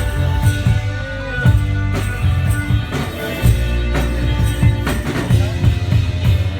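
One-man band playing music on instruments he built himself: a steady drum beat about twice a second under bass notes and pitched melody notes.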